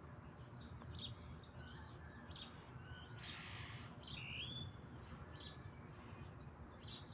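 Faint, scattered bird chirps over a low background hum, with a brief hiss about three seconds in.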